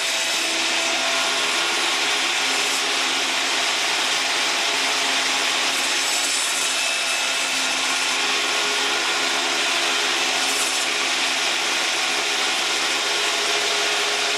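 Table saw running steadily with a single blade set about half an inch high, cutting a dado into a wood block in repeated passes, with a vacuum cleaner running alongside it.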